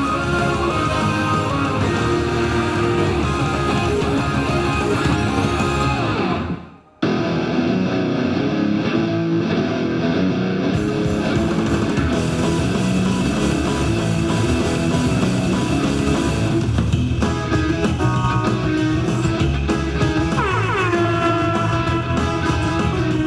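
Rock music with guitar, cutting out briefly about seven seconds in and then resuming.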